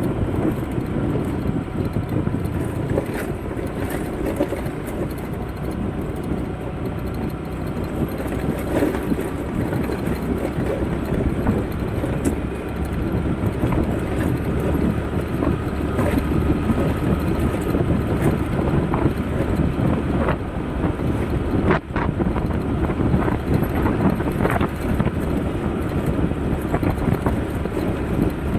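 Steady low rumble of a moving vehicle, with a few faint knocks and a brief dip about two-thirds of the way through.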